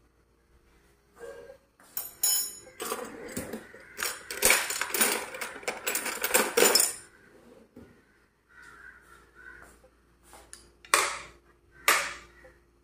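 Crockery and cutlery clattering for several seconds: a cup, plate and steel spoon rattling and clinking together. Near the end come two sharp knocks.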